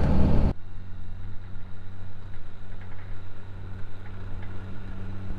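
Truck driving noise that cuts off abruptly about half a second in, followed by a quieter steady engine hum.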